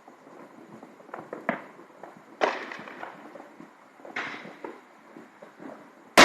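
Fireworks bursting: a couple of small pops, then two louder bangs about two and a half and four seconds in, each trailing off in a rumbling echo.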